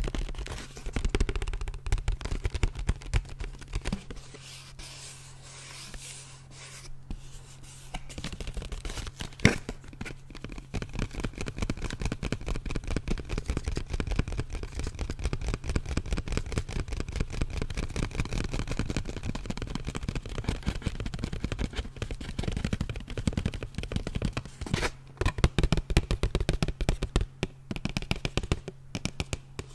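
Fingers tapping, scratching and crinkling a plastic blister pack with a cardboard backing, held right at the microphone: a dense run of rapid clicks and rustles, with one sharp crack about nine and a half seconds in.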